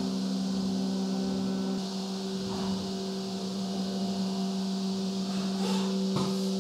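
Spindle of a Haas UMC 750 SS five-axis CNC mill running a 1/8-inch ball end mill, a steady hum with a higher overtone and a light hiss, as the tool rasters over a small aluminium part. A brief click comes near the end.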